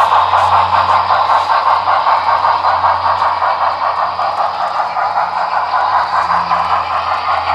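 HO scale Broadway Limited steam locomotive's sound decoder playing steam chuffing through its small onboard speaker as the train runs, a rapid, even chuff.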